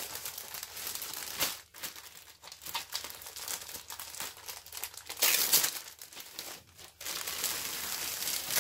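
Clear plastic bag crinkling and rustling as a bagged wig is lifted out of its box and handled, with dense crackles throughout. The loudest stretch of crinkling comes a little past halfway.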